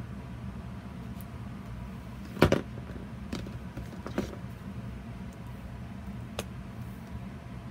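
Plastic paint squeeze bottles handled on the work table: a sharp knock about two and a half seconds in, two lighter knocks soon after and a small click later, over a steady low hum.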